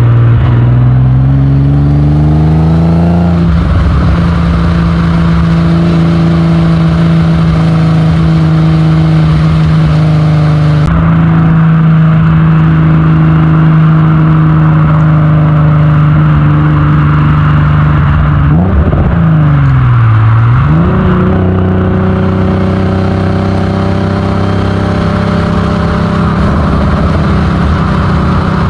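Modified 1984 Alfa Romeo GTV6's 3.0-litre V6 running under way: the revs climb over the first few seconds, then hold a steady cruising drone. About two-thirds of the way through the revs fall away and climb back up, settling into a steady cruise again.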